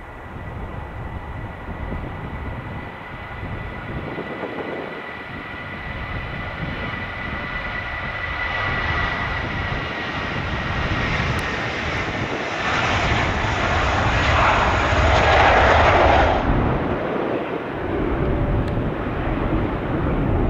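Airbus A320 airliner's jet engines at takeoff power: a steady whine over a rumble, growing louder as the jet rolls down the runway and passes. The high hiss cuts off sharply about sixteen seconds in, leaving a duller rumble as the jet climbs away.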